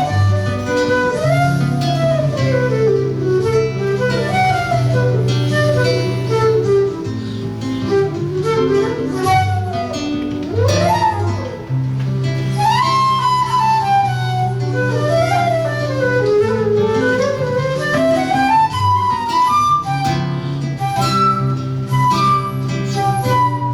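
Flute and seven-string guitar duo playing live: the flute runs through quick phrases that climb and fall over the guitar's bass line and chords.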